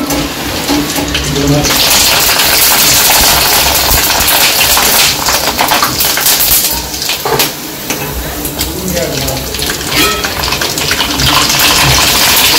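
Dried sabudana-potato sticks sizzling and crackling loudly in hot oil in a steel kadhai as they puff up, with a metal slotted spoon stirring and scraping the pan. The sizzle eases off a little after about seven seconds and flares up again near the end.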